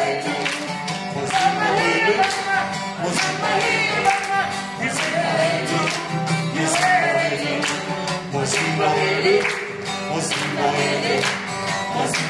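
Acoustic guitar strummed to a steady beat while a group of voices sings a repeated chant along with it.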